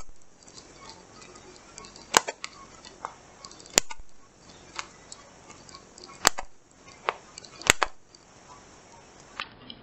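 Handheld single-hole paper punch snapping through a laminated worksheet, a sharp click with each hole punched: about five loud clicks a second or two apart, with fainter clicks between.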